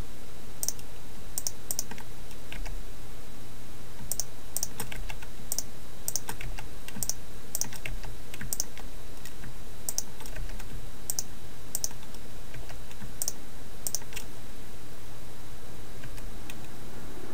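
Scattered sharp clicks of computer keys and mouse buttons, one or two a second and often in quick pairs or threes, over a steady low hum.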